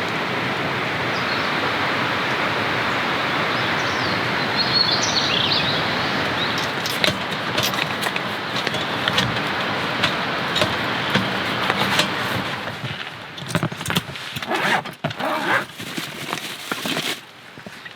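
Heavy rain falling, a dense steady hiss. About two-thirds of the way through it turns uneven, with scattered sharp taps and dips in loudness.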